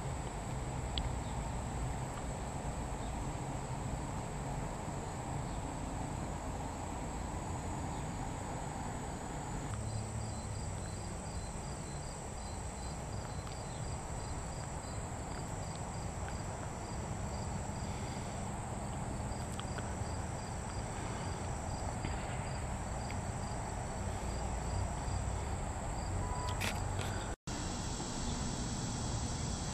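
Summer insects chirping outdoors: a steady high buzz and, from about a third of the way in, a fast, even train of pulsed chirps, over a low rumble. The sound cuts out for an instant near the end.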